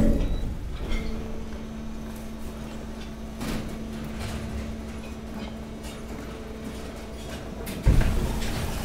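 Hydraulic waste press's power unit humming steadily over a low rumble, its level dropping in the first second. Scattered clicks come through it, and there is a heavy thud near the end.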